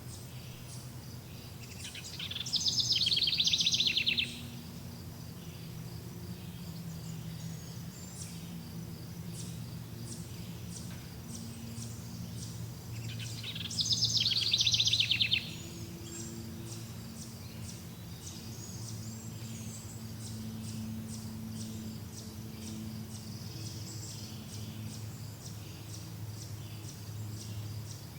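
Forest ambience: a bird sings a loud, rapid high trill twice, each lasting about two seconds and about ten seconds apart. Between them are faint, steady high chirping and a low background hum.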